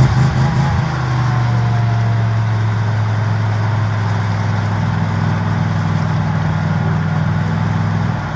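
Suburban's engine given gas while being towed out of a ditch on a strap: an uneven surge of revs in the first second, then held at steady raised revs, dropping off just at the end.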